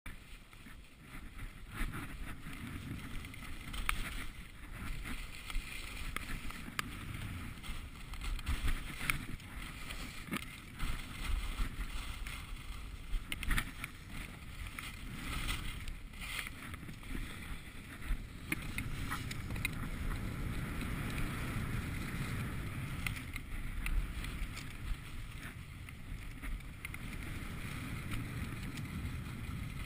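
Skis sliding and carving over packed groomed snow: a continuous scraping hiss with frequent short louder scrapes as the edges bite in turns, and wind buffeting the camera microphone as a low rumble.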